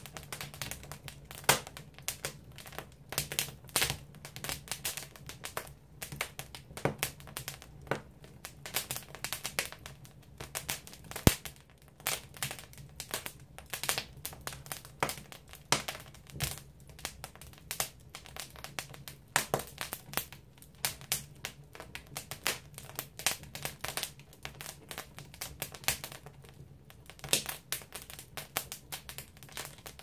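Firewood burning in an agungi, a traditional Korean wood-fired furnace: dense, irregular crackling and sharp pops, a few of them louder, over a steady low hum.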